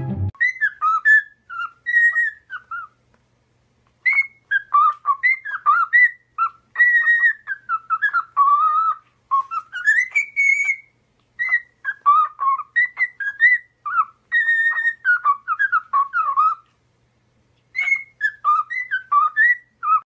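Cockatiel whistling a melody: clear notes gliding up and down in phrases, with two short pauses.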